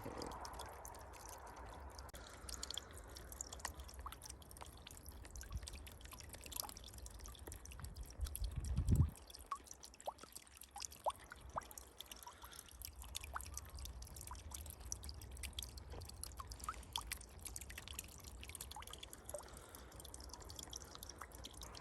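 A small pump-fed waterfall trickling and dripping into a pond, with many small drips and splashes over a steady faint water sound. About nine seconds in there is a brief low rumble, like wind or handling on the microphone.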